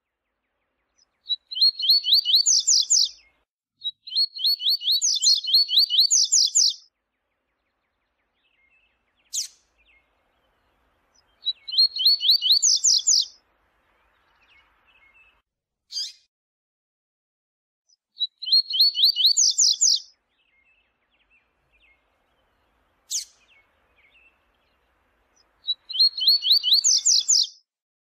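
Double-collared seedeater (coleiro) singing its 'viu-tiu' song: six short phrases of rapid high notes that climb higher at the end, about every seven seconds. A single sharp call note falls between phrases.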